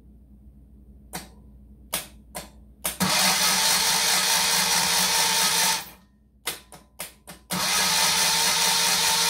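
Electric starter of a 1973 Moto Guzzi Eldorado V-twin cranking the engine over in two runs of about three seconds each, each run preceded by a few sharp clicks. The engine does not fire, as it has no spark plug wires connected.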